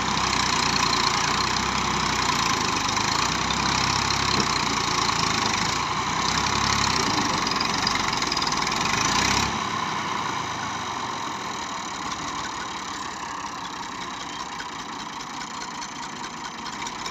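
Old Massey Ferguson 240 tractor's three-cylinder diesel engine running hard under load while backing a brick-laden trolley. About nine and a half seconds in, the revs drop suddenly and it runs on more quietly.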